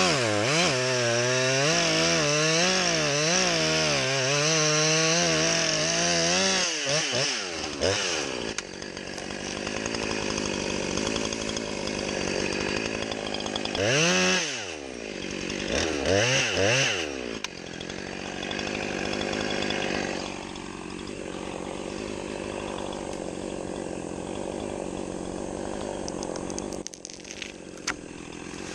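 Chainsaw running under load, its pitch wavering up and down through the first several seconds as it cuts. It then drops to a lower, steadier run, with two short revs near the middle.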